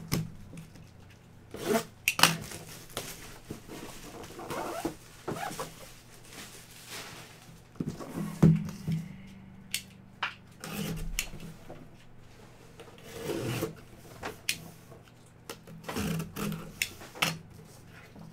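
A shrink-wrapped cardboard box being handled and opened: irregular rustling, scraping and light knocks of wrapper and cardboard.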